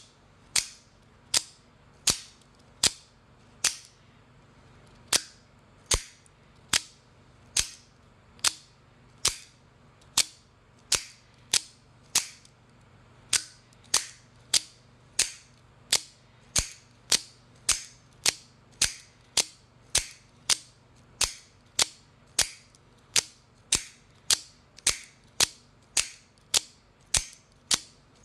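AKC F-16 out-the-front automatic knife firing its blade out and back again and again, each stroke a sharp snap, a little more than one a second, with a brief pause about four seconds in.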